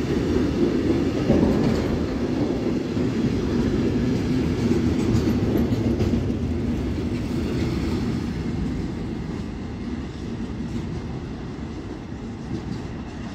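Freight train of tank wagons and sliding-wall wagons rolling past close by, a steady heavy rumble of wheels on rails. It fades away over the last few seconds as the end of the train passes.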